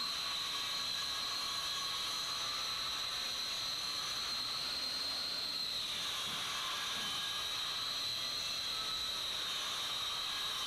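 A steady hiss with a high whistling tone running through it; the tone dips slightly about six seconds in.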